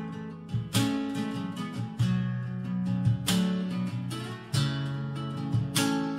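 Background music of acoustic guitar strumming chords, with a strong strum about once a second.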